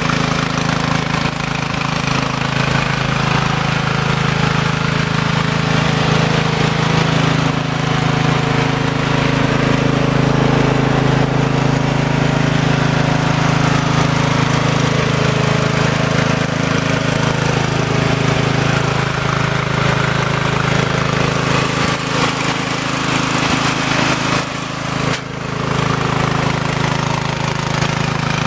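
Troy-Bilt riding lawn mower's 17.5 HP engine running steadily, with a brief dip in level near the end.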